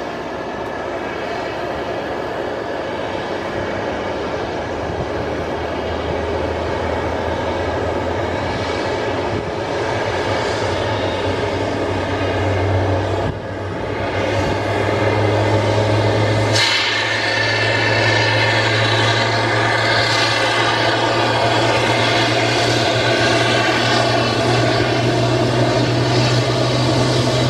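Airbus A319 airliner's jet engines running with a steady low hum and rushing noise, getting gradually louder while the aircraft is pushed back by a tug. There is a brief drop about thirteen seconds in, then a sudden step up in loudness about three seconds later.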